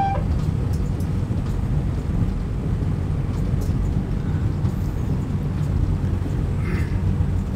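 Steady low rumble of a high-speed electric train running at speed, heard from inside the driver's cab.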